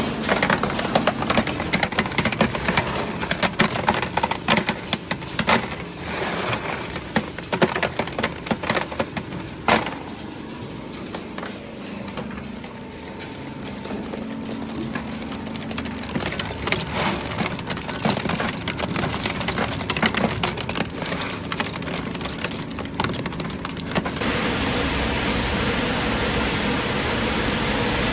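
Scrap appliance recycling machinery running, with frequent irregular clattering and knocks of scrap pieces. About 24 seconds in it changes abruptly to a steady, even machine noise.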